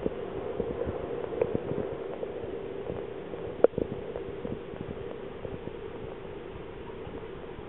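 Steady mechanical hum with scattered small clicks and one sharper knock a little past halfway.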